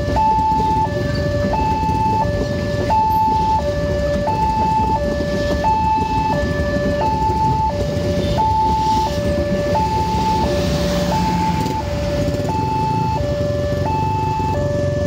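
Railway level-crossing warning alarm sounding a two-tone electronic chime, alternating a lower and a higher tone about every three-quarters of a second. Under it, the rumble of passenger coaches rolling past on the rails, which eases near the end as the train clears while the alarm keeps going.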